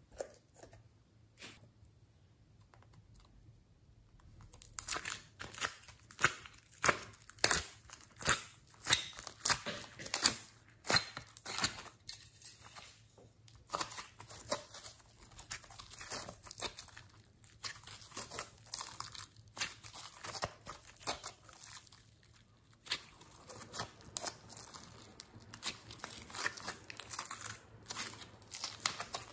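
Glossy slime with soft clay being kneaded, squeezed and stretched by hand, giving a quick, irregular run of sticky clicks and crackles. The first few seconds are nearly quiet before the handling sounds start.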